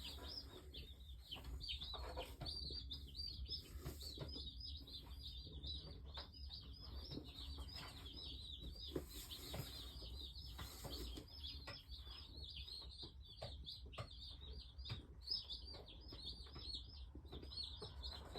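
A box of Cornish Cross broiler chicks peeping continuously, many short high chirps overlapping.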